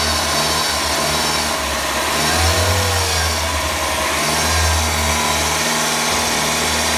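Toyota Corolla/Levin 1.2-litre turbocharged four-cylinder engine revved up to about 2000 rpm and let back down several times, then held steady. No whistle is heard: the whistle came from a cracked bracket below the turbocharger resonating, and the bracket has been replaced with the improved two-bolt version.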